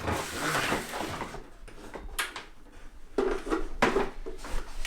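Handling clatter: a few short knocks and clicks of hard objects being moved and set down, with no motor running.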